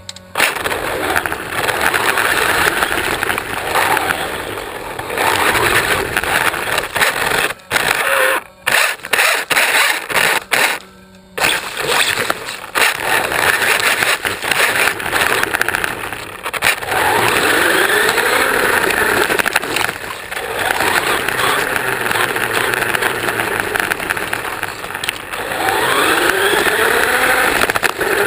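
A 1/16-scale RC car driving, heard from on board: its motor and drivetrain whine rises and falls in pitch with speed, over a dense rattle of tyres and chassis on grass and pavement. It goes quiet briefly a few times about a third of the way in, where the car slows or stops.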